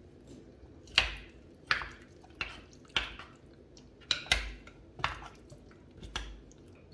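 A metal spoon clinking and scraping against a clay tagine bowl while stirring chunks of meat and garlic cloves: about eight sharp clinks at an uneven pace, roughly one every second or less.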